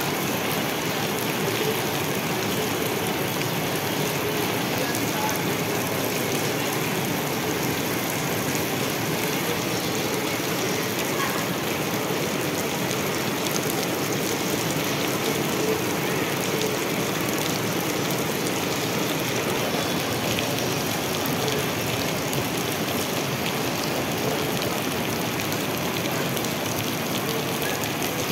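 Heavy rain falling steadily on wet ground and puddles, an even hiss of drops that neither swells nor fades.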